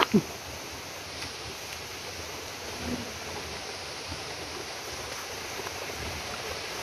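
Steady, even outdoor background noise with no distinct events, after one short sound falling in pitch right at the start.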